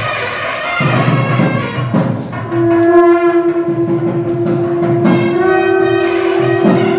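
Instrumental music; a long held note enters about two and a half seconds in and is sustained.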